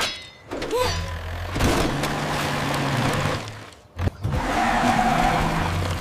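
Cartoon sound effects of a truck engine running with a steady low hum, its wheels churning through mud, with a sharp knock about four seconds in.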